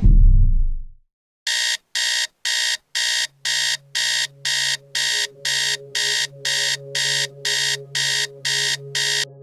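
A deep boom dies away in the first second. Then a wake-up alarm sounds as a steady run of short, high-pitched beeps, about two a second, with a faint low musical drone coming in underneath.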